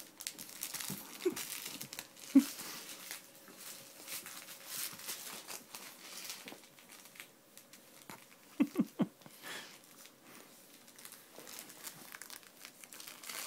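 A puppy tussling with a stuffed plush zebra toy: steady crinkling and rustling, broken by a few short low sounds, a sharp one about two seconds in and three in quick succession about nine seconds in.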